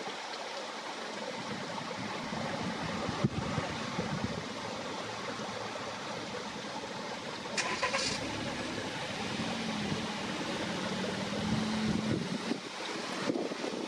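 Road traffic at a level crossing: a car engine running close by, with a short rattle a little past halfway.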